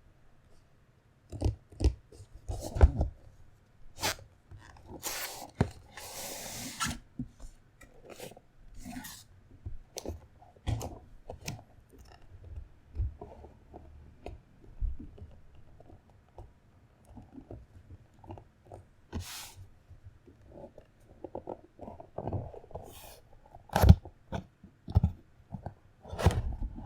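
Handling noises of a barebone mechanical keyboard kit: irregular knocks, taps and clicks, with a scraping rustle of about two seconds around five seconds in.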